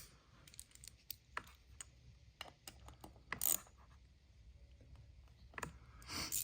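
Irregular light metallic clicks and taps from a hand wrench snugging up the bolts on a motorcycle's idle air control valve bracket, with a few louder clicks about a second and a half, three and a half, and five and a half seconds in.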